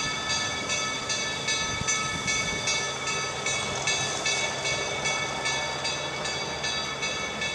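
Steam locomotive chuffing steadily as it pulls its train, about three exhaust beats a second.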